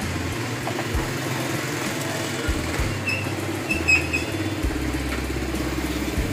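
An engine running steadily in the background, with a few faint clinks about three to four seconds in.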